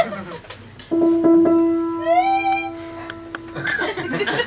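Theremin sounding a held note that starts sharply about a second in and slowly fades, with a short upward-gliding note laid over it about two seconds in. A few light clicks.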